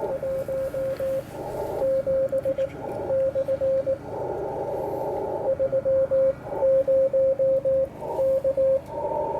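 Morse code (CW) being sent on an 80-metre amateur transceiver: a steady single-pitch sidetone beep keyed on and off in dots and dashes. Stretches of radio hiss fill the gaps between groups of characters.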